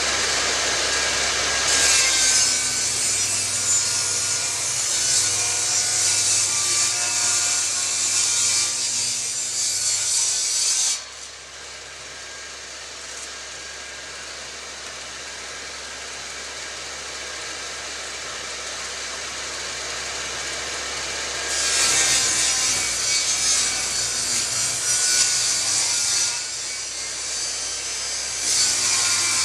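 Electric saw cutting through wood. The loud cut stops abruptly about eleven seconds in, leaving the motor running quieter, and cutting starts again a little past twenty seconds in.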